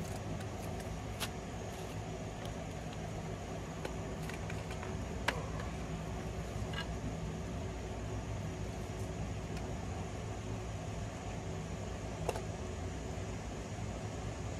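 Steady low mechanical hum, with a few light clicks and taps from hands working at a car's bare rear wheel hub and suspension.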